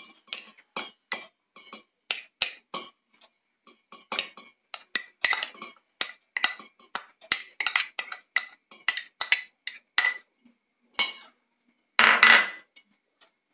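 A metal spoon scraping and tapping grated coconut out of a glass bowl into a stainless steel bowl: a long run of quick, irregular clinks against glass and steel. A louder clatter comes near the end, as the spoon is laid in the steel bowl.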